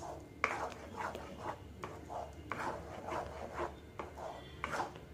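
Wooden spatula scraping and stirring thick urad dal kali in an aluminium kadai, a rhythmic rasping of about three strokes a second. The dough is being cooked down in sesame oil and ghee with constant stirring.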